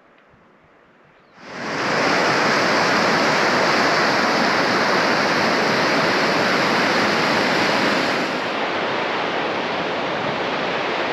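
Fast, muddy mountain river rushing over stones: a loud, steady rush of water that starts suddenly about a second and a half in and drops a little in level near the end.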